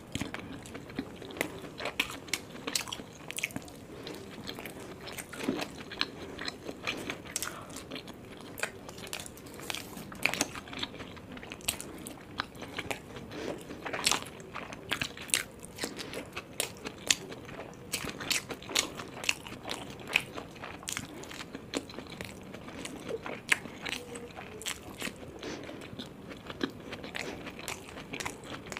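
A person chewing and biting into momos dipped in red chutney: many short, irregular mouth clicks and chewing sounds.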